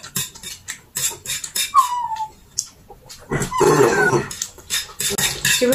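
Chopsticks and utensils clicking against plates and bowls while eating, with short wordless vocal sounds: a brief falling note about two seconds in and a hummed voice sound a little past halfway.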